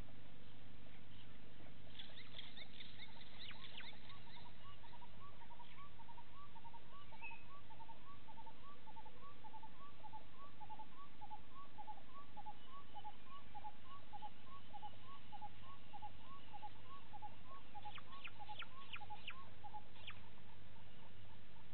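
A bird calling a long series of evenly spaced whistled notes, about two a second. Short bursts of sharp, high chirps come near the start and near the end. A steady low hum runs underneath.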